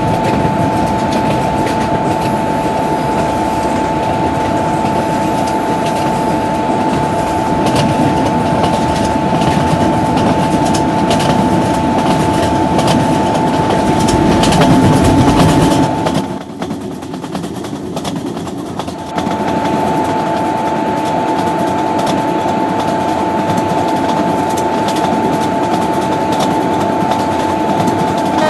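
Rajdhani Express train running along the track, with rolling noise, repeated clicks of wheels over rail joints and a steady two-note whine. The noise drops for about three seconds a little past halfway, then returns.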